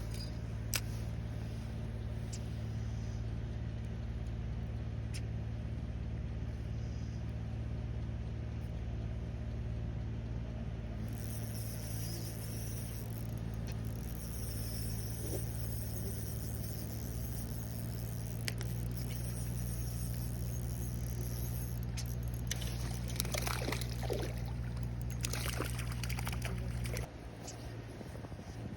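A steady low mechanical hum, made of several fixed low tones, that cuts off suddenly near the end. A high hiss joins about a third of the way in, and a few sharp clicks and short scrapes come late.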